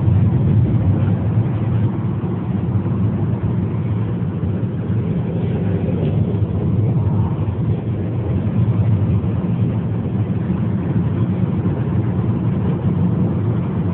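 Steady low rumble of a moving car's road and engine noise, heard inside the cabin.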